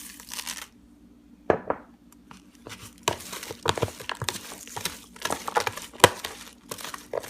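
Crisp bhel puri mixture of puffed rice, crushed puris and sev crackling and rustling in a bowl as the sev is added, in dense irregular bursts from about three seconds in, after a brief rustle at the start and a single knock about a second and a half in.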